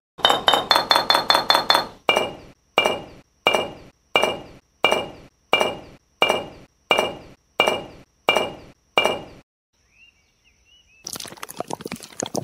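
Ringing, glassy clinks: a quick run of about eight, then single identical clinks evenly spaced about two-thirds of a second apart, stopping a few seconds before the end. Near the end a rough, crackling scrape begins, a small trowel working wet cement.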